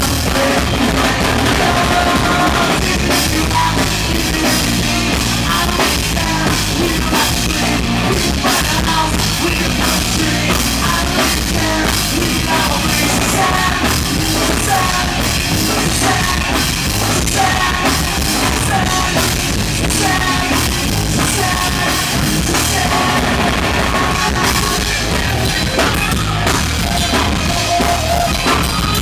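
Rock music with a driving drum kit, played loud and steady.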